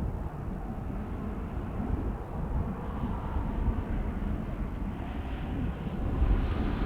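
Jet airliner engine noise at an airport: a steady low rumble, with a rising hiss that grows louder toward the end as the aircraft comes closer. Wind on the microphone adds a gusty low buffeting.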